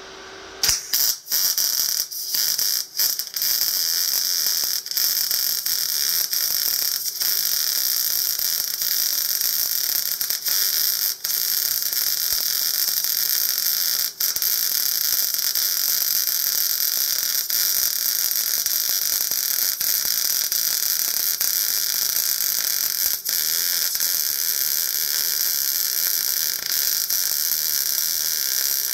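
MIG (GMAW) welding arc on a wheel rim: a steady, loud hiss that starts about half a second in, breaks off and restarts a few times in the first few seconds, then runs on with only a few short breaks.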